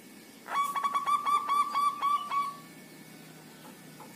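Zebra dove (perkutut) cooing: a rapid run of about nine short, clipped notes over two seconds, ending on a slightly longer held note.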